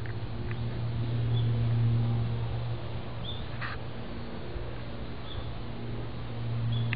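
A steady low hum that swells, fades through the middle and returns near the end, with faint short high chirps about every two seconds and a brief rustle a little over three and a half seconds in.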